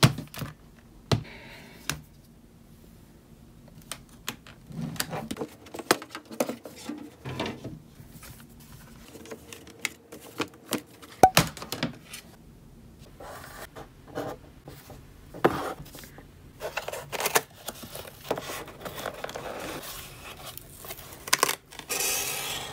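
Paper and cardboard laptop packaging handled by hand, rustling and scraping, with many scattered sharp clicks and knocks.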